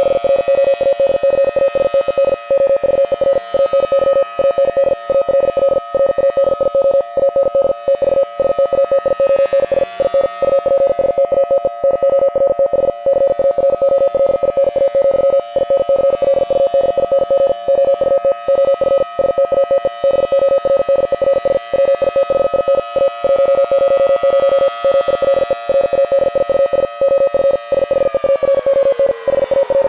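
Outdoor warning siren sounding a loud, steady two-note chord, then winding down in pitch about two seconds before the end. The tone is broken by many very brief dropouts. A steady siren like this is the signal to evacuate the nuclear plant.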